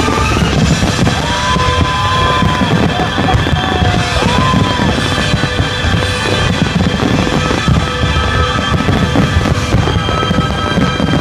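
Loud rock music with drums, the soundtrack of a fireworks display. Two short rising-and-falling whistling glides sound over it about a second in and again about four seconds in.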